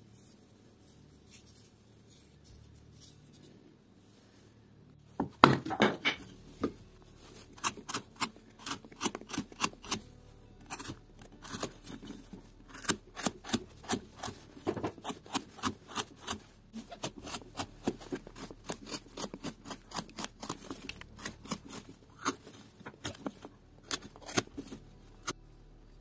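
A carving gouge pushed by hand through a small block of wood, slicing off chips in a quick, irregular run of sharp cuts, two or three a second. The cutting starts about five seconds in.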